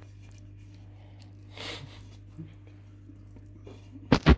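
A cat eating from a bowl close to the microphone, over a steady low hum, with a short rustle about a second and a half in. Near the end come two or three loud, sharp knocks.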